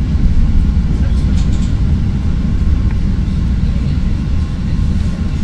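CTA Red Line rapid-transit train heard from inside the car, with a steady low rumble of wheels on rails and running gear as it pulls into a station.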